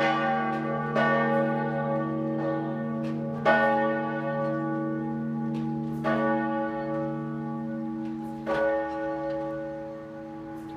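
Church bells ringing for the 11 o'clock high mass: a few clanging strokes, growing farther apart, over the bells' steady humming ring. After the last stroke, about eight seconds in, the ringing fades away as the peal comes to an end.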